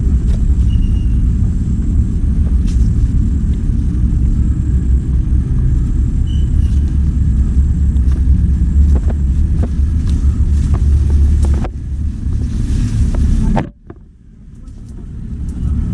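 Heavy engine running with a low, steady rumble. It eases off about twelve seconds in, drops away sharply shortly after, and picks up again near the end.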